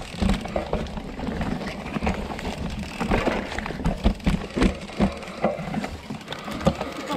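Mountain bikes rolling down a rocky singletrack: tyres crunching over stones and dry leaves, with frequent irregular knocks and rattles of the bikes over the bumps.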